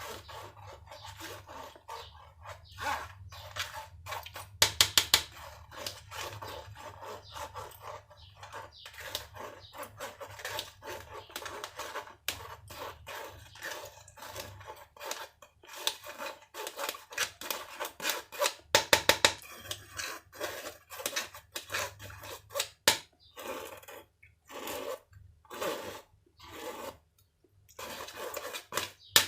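Irregular scraping, rubbing and clicking of kitchen utensils, with a few sharper clatters scattered through, over a faint steady hum.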